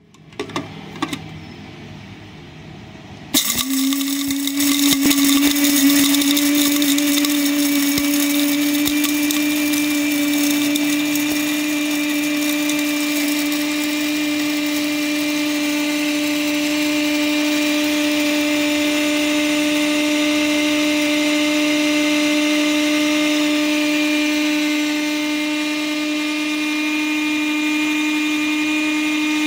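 A Kahchan mini electric blade grinder grinding dry soybeans. A few clicks come first, then the motor starts about three seconds in and runs steadily. At first its blade smashes the hard beans with a dense rattling crackle; the motor's hum rises a little in pitch and the rattle thins out as the beans turn to powder.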